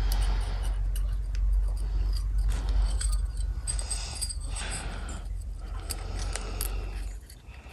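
Light metallic clicks and scrapes as a steel compression ring is worked by hand around a 250cc aluminium piston and pressed into its groove, over a low steady hum that stops near the end.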